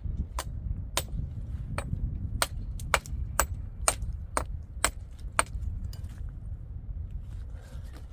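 Hammer blows striking nails into wood, about two a second and fairly even, stopping about five and a half seconds in, over a steady low rumble.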